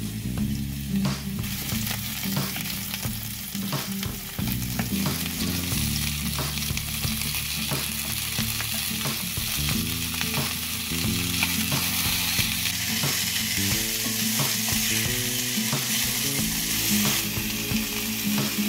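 Vegetables (onion, bell peppers, potatoes, carrots, broccoli) sizzling as they fry in a nonstick pan, with frequent clicks and scrapes of stirring. The sizzle grows louder about a third of the way through.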